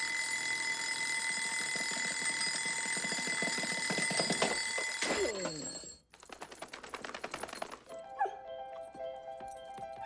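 Mechanical bell alarm clock ringing, a fast metallic clatter that cuts off about five seconds in. A second, shorter burst of ringing follows, then music.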